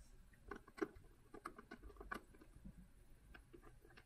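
Faint, irregular small clicks and taps from hands handling small parts, thickest in the first two and a half seconds and sparser after.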